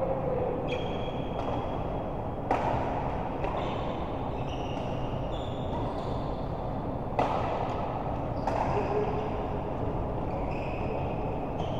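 Indoor doubles racket-sport rally: sharp racket hits a few seconds apart, with sports shoes squeaking briefly and often on the court floor between them, over steady hall noise.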